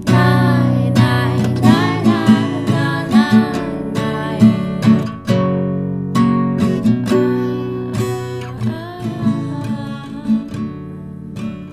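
Instrumental outro of a song: strummed acoustic guitar with a melody line over it, fading toward the end.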